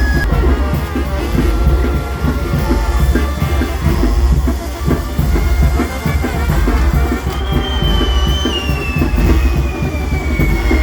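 Loud music with drums playing. About halfway through, a long high whistle starts and slides slowly down in pitch.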